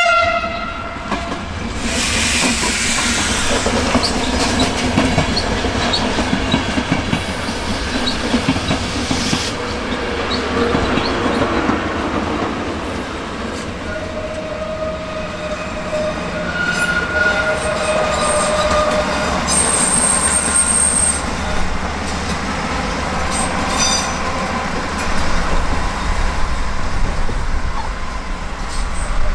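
A train passing close by, its wheels clattering over rail joints and points, with high squeals from the wheels on the rails for several seconds in the middle.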